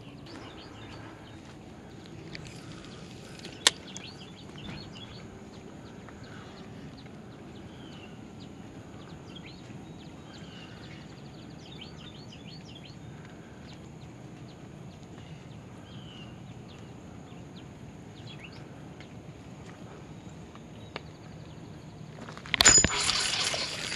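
Quiet lakeside ambience: a faint steady hiss with a faint steady high tone, scattered faint bird chirps, and one sharp click a little under four seconds in. About a second before the end, a sudden, much louder stretch of noise begins as a small bass is hooked.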